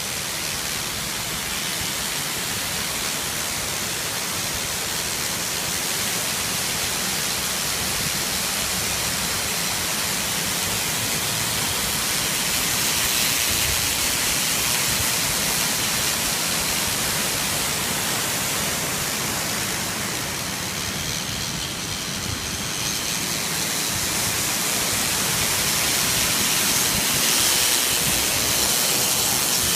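Waterfall pouring: a steady rush of falling water that swells a little at times.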